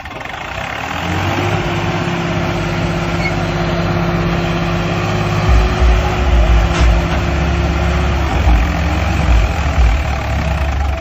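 Tractor engine running steadily, with heavy deep thumps joining in from about halfway through.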